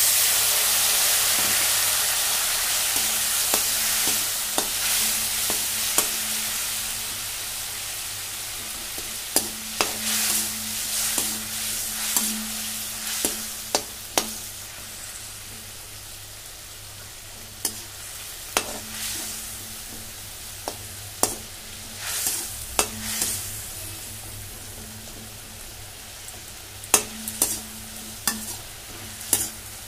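Masala of onion, tomato and spices frying in a metal karai sizzles loudly as a little water hits the hot oil, the hiss dying down over the first several seconds. A perforated steel spatula then stirs the pan with irregular metallic clinks and scrapes over a lower sizzle.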